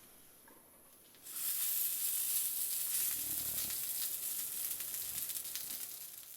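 Food hitting a hot pan over a campfire: a loud sizzle starts suddenly about a second in and slowly dies down, then cuts off abruptly at the end.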